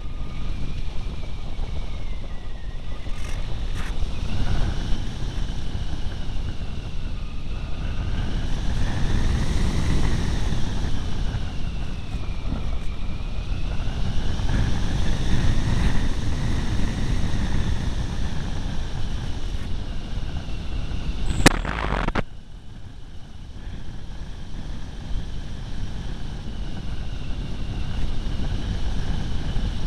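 Wind rushing over an onboard camera on a Turnigy Rogue RC glider in flight, with a whine from its electric motor gliding slowly up and down in pitch. About three quarters of the way in there is a sharp click, and the sound suddenly drops before slowly building again.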